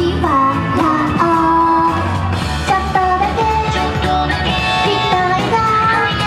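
A female vocalist sings an upbeat J-pop idol song live over music with bass and a steady drum beat.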